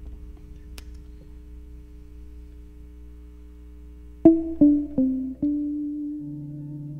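Electric basses playing: a faint held note, then four quick plucked notes a little over four seconds in, the last one ringing on, with a lower note coming in near the end.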